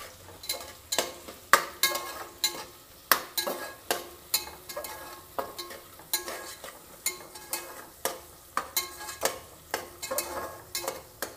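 Metal spatula stirring chopped onions frying in oil in an aluminium pressure cooker: irregular scrapes and knocks against the pot, about one or two a second, each leaving a brief metallic ring, over a light sizzle of the onions in hot oil.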